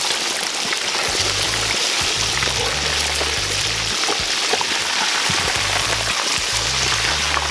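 A whole carp deep-frying in a cast-iron kazan of hot vegetable oil: a steady, dense sizzle as the fish is turned with a fork and a skimmer. Background music with a bass line plays underneath.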